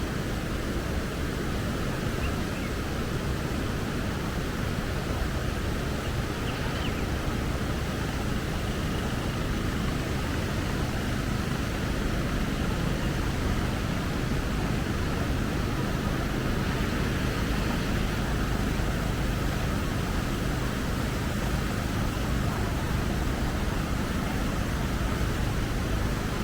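Steady rushing of the fast-flowing Tomebamba river, an even noise that holds at one level throughout.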